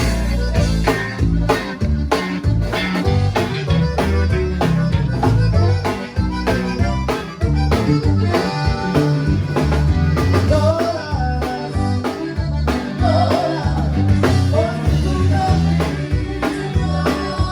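Live conjunto band playing a song, with bass and drum kit keeping a steady beat under a melody line.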